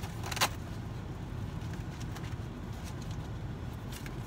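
A short rasp of Velcro about half a second in as a padded divider is pulled free or pressed into place in a travel cosmetic organizer, followed by a few faint handling clicks. Underneath runs the steady low rumble of a car's cabin.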